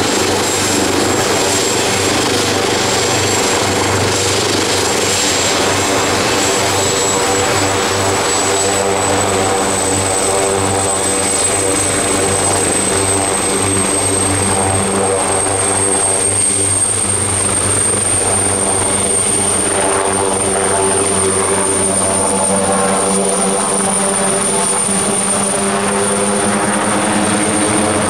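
Leonardo AW139 helicopter running at high power through lift-off: twin turboshaft engines and five-bladed main rotor. A thin high turbine whine rises slowly in pitch from about a third of the way in, over steady loud rotor and engine noise.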